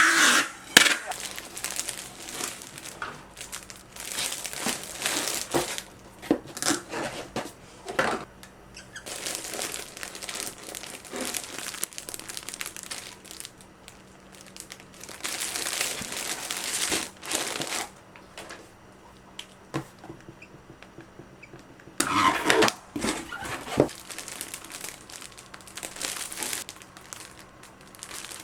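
Crinkly material being handled: irregular bursts of crinkling and rustling mixed with a few short knocks, pausing twice.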